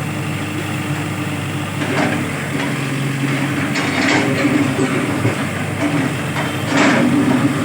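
Diesel engine of heavy road-construction machinery running steadily, with short noisy bursts about 2, 4 and 7 seconds in.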